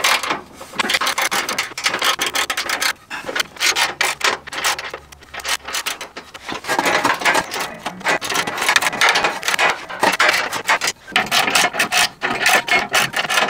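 Hand ratchet wrench tightening skid plate bolts: rapid pawl clicking in strokes, with a few short pauses.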